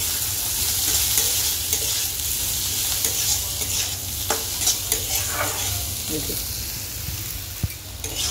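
Upma cooking in a pan: a steady sizzle, with a spoon stirring and scraping in it now and then.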